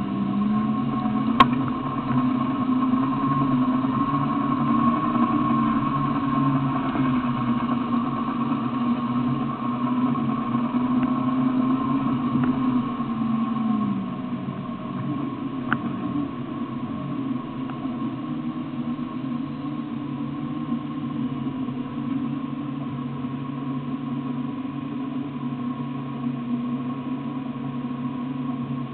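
Off-road 4x4 engine running, its pitch rising and falling with the throttle for the first half, then settling to a steadier, lower note near idle. A sharp click about a second in, and another near the middle.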